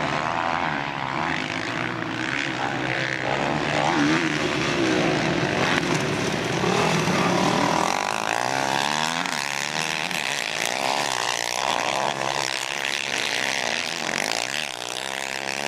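Several motocross bike engines revving hard and racing past. Their pitch swings up and down with each throttle change through the corners, the revs overlapping throughout.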